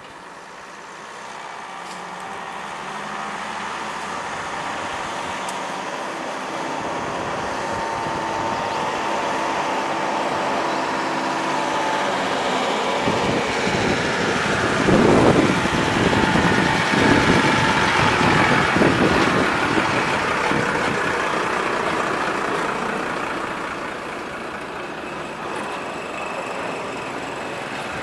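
A motor vehicle's engine and tyres on the road, growing steadily louder to a peak around the middle, then fading.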